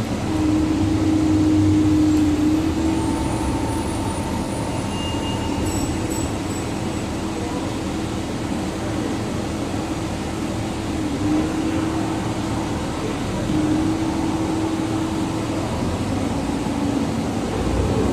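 Interior of a city transit bus on the move: steady engine and road noise with a constant mid-pitched whine that dips briefly now and then.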